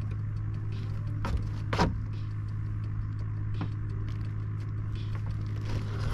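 A boat motor running with a steady low hum, with a couple of sharp knocks a second or two in, the second the loudest, and a fainter one later.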